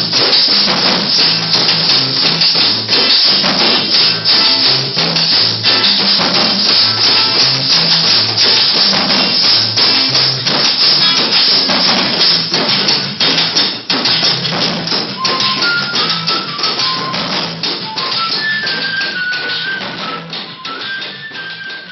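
A group playing a Colombian rhythm on shakers, hand drums and a drum kit, with an acoustic guitar: a dense, steady beat with the shakers on top. About fifteen seconds in a high melody comes in over it, and the playing grows quieter near the end.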